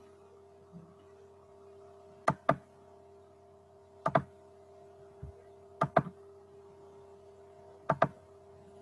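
Four pairs of sharp clicks, about two seconds apart, made at a computer, over a steady electrical hum.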